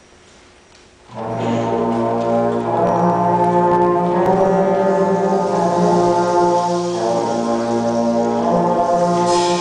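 Youth concert band entering about a second in and playing sustained, slowly changing chords, with brass prominent.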